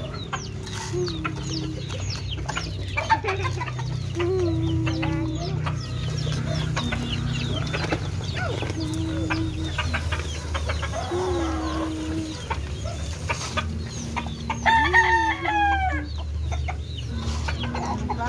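Caged roosters clucking in short, repeated held calls, with one rooster crowing about fifteen seconds in.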